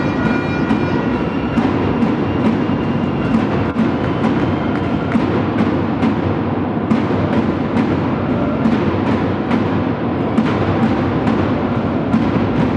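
Supporters beating a bass drum, about two beats a second, over the steady noise of a crowd in a sports hall.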